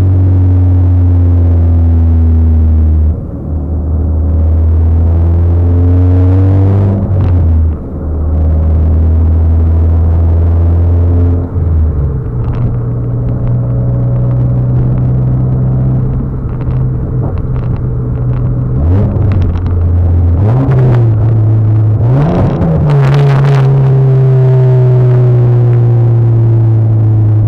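The engine of a Mitsubishi Lancer Evolution X, a turbocharged four-cylinder, droning steadily as heard inside the cabin while driving. The note dips briefly about three, eight and eleven seconds in, as if at gear changes. Near twenty seconds in the revs rise and fall quickly, with a short burst of noise just after.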